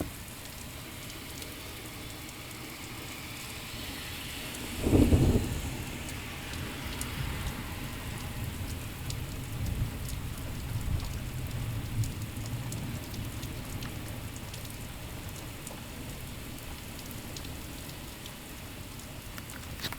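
Heavy rain pouring steadily, with a loud clap of thunder about five seconds in that rolls on as a low rumble for several seconds.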